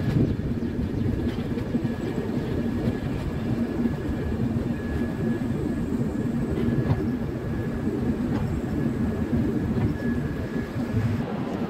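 Steady rumble and rattle of a passenger train running along the track, heard from on board a coach, with a low steady hum underneath.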